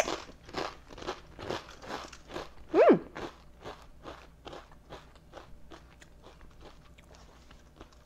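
A crunchy potato chip bitten, then chewed with a steady run of crunches, about three a second, fading after about five seconds. A brief falling hummed 'mm' from the eater about three seconds in.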